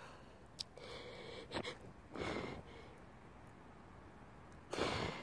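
A person sniffling and breathing hard through a runny, congested nose, three times, the last sniff near the end the strongest, with a couple of faint clicks between.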